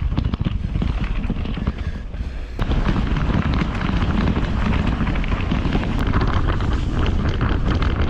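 Wind rushing over the microphone of a bike-mounted camera, with the rumble and rattle of a bicycle rolling fast over a gravel and dirt track: a constant noise full of small knocks. It dips briefly and changes abruptly about two and a half seconds in.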